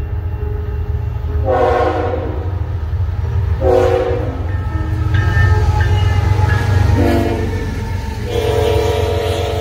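Air horn of a Canadian National ET44AC freight locomotive sounding in several blasts as the train approaches and passes, with a longer chord near the end, over the steady low rumble of the diesel locomotives and the cars rolling by.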